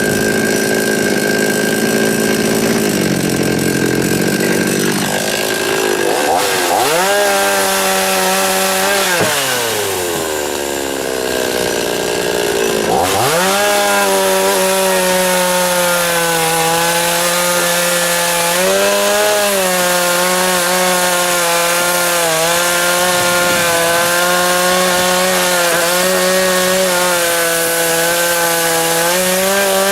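52cc two-stroke Chinese chainsaw with a 20-inch bar cutting through willow logs, its engine pitch sagging under load. About a third of the way in it eases off toward idle with a falling pitch, then revs back up and cuts steadily for the rest.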